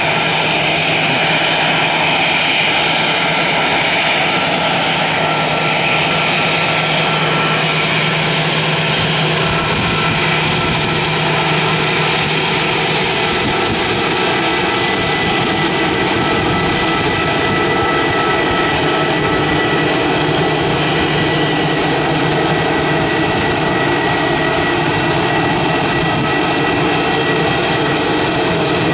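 An easyJet Airbus A320's twin jet engines running at taxi power as the airliner taxis past: a steady engine noise with several high whistling tones. A low hum drops out about halfway through.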